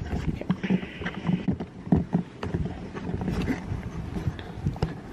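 Handling noise from a phone camera being moved and set on a tripod: irregular knocks, bumps and clicks, with fabric rubbing against the microphone.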